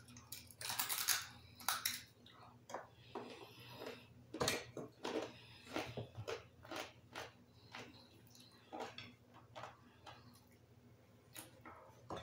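Chewing and crunching of fried chicken-skin cracklings (chicharon): many irregular crisp crunches, thickest in the first couple of seconds, then scattered. A faint steady low hum lies underneath.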